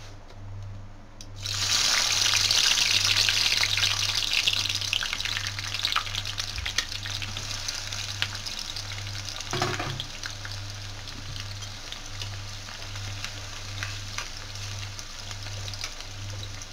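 Sliced onions hitting hot mustard oil in a kadhai and frying: a sudden loud sizzle starts about a second and a half in, then eases off to a steady frying sizzle. One brief knock about ten seconds in.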